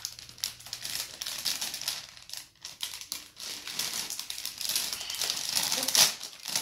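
Clear plastic bag crinkling and rustling as it is handled and pulled open, in irregular bursts, loudest near the end.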